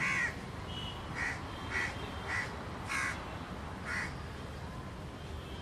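A crow cawing six times in short calls, spaced about half a second to a second apart, over a steady low background rumble.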